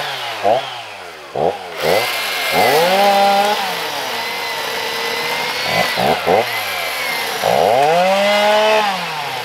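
Chainsaw revving up and down over and over: several quick throttle blips and two longer stretches at high revs, as juniper saplings are cut.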